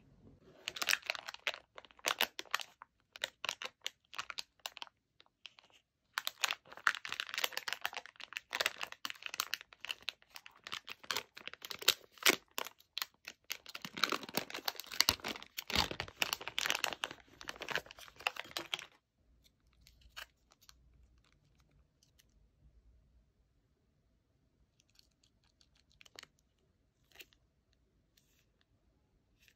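Plastic packaging of a warabi mochi jelly snack crinkling and tearing as it is opened, a dense crackle that breaks off briefly about five seconds in and stops at about nineteen seconds, followed by a few faint taps and clicks.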